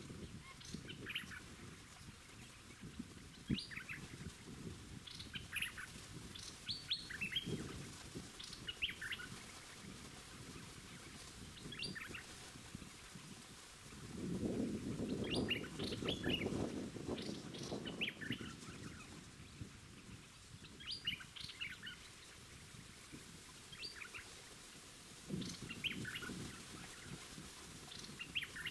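Small songbirds chirping, with short calls repeated in quick series again and again. A low rumbling noise rises from about halfway in for a few seconds and returns near the end.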